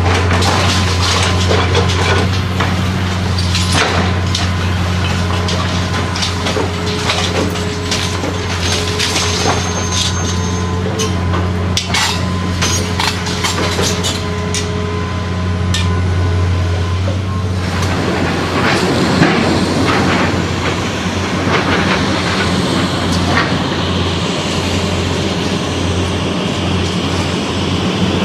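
Heavy demolition machinery at work: a diesel engine drones steadily under many sharp crashes and clatters of breaking building material. About two-thirds of the way through, the engine drone drops away and a denser rush of falling, crunching debris takes over.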